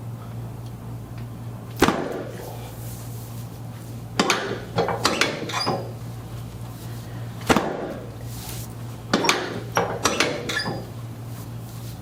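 Chiropractic spinal adjustments: sharp thumps and pops as the patient's back is thrust against the treatment table. There is a single one, then a quick run of four or five, another single, and another run. A steady low hum runs underneath.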